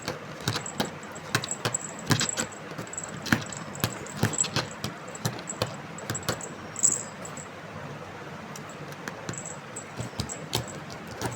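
Irregular light clicks, taps and clinks over faint rustling, as of things being handled or shifted about.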